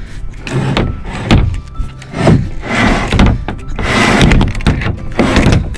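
A solar panel sliding along the track of a sailboat's solar arch, pushed in a series of scraping, knocking shoves about once a second.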